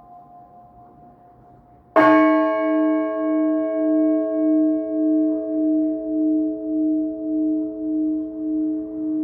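One stroke of an Orthodox church bell about two seconds in, over the fading hum of the stroke before it. The bell rings on with several steady tones and a slow wavering pulse in its low hum, fading gradually.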